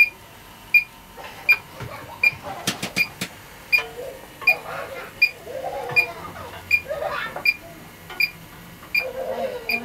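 Electronic refrigerant leak detector giving its regular intermittent beep, about four beeps every three seconds: its normal ready state, signalling that no leak is detected (a leak turns it into a constant tone). A quick run of sharp clicks comes about three seconds in.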